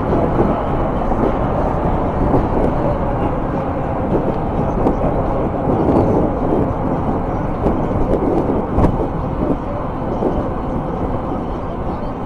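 Steady rush of wind on the microphone and tyre noise from an e-bike rolling along a paved path, with highway traffic running alongside. A single sharp click about nine seconds in.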